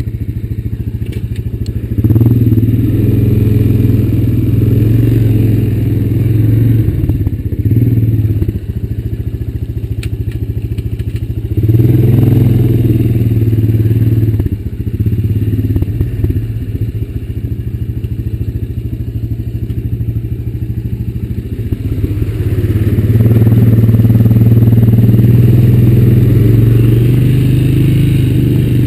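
Honda Recon ATV's single-cylinder four-stroke engine running while riding over a dirt trail, with a few loud throttle-ups and quieter easing-off stretches between them. The longest pull starts a little past two-thirds of the way through.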